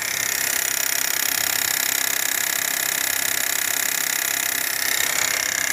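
High-pressure direct-injection fuel pump on a running Renault Duster 1.3 turbo engine, heard through a microphone placed on the pump: a loud, rapid, even ticking. The mechanic takes the noise for a failing high-pressure pump.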